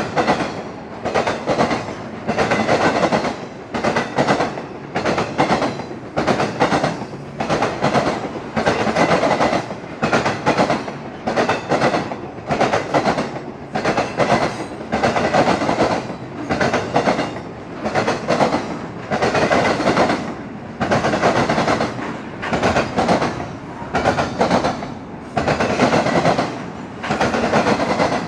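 Cars of an intermodal freight train rolling past, their wheels clacking over the rail joints in a steady rhythm of about one loud pulse a second.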